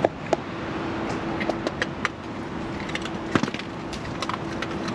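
An opossum crunching dry dog food, irregular sharp cracks and clicks, over a faint steady hum.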